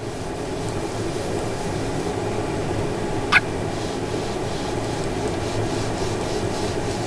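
A premature newborn's hiccup: one short, squeaky "hic" about three seconds in, over a steady background hum.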